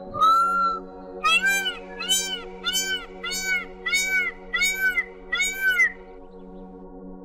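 High, mewing animal calls: one short held call, then a run of seven quick, evenly spaced calls, each rising and falling in pitch. Soft ambient music plays underneath.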